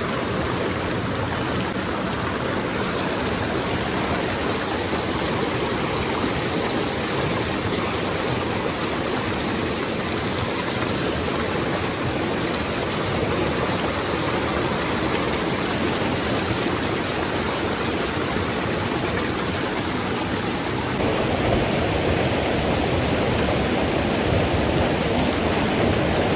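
Mountain river running over boulders: a steady rush of water noise, which grows a little louder and fuller near the end.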